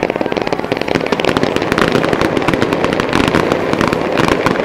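Fireworks going off in a dense barrage: many small bursts and pops in quick succession, an unbroken crackling.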